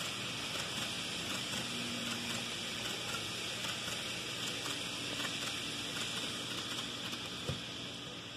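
Model passenger train rolling along the layout's track: a steady hiss of metal wheels on the rails with a fine, rapid clicking, easing off near the end as the last cars pass. A single short thump about seven and a half seconds in.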